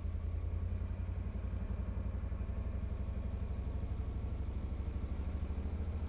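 Cub Cadet Volunteer utility vehicle's engine idling steadily, a low, even pulsing hum.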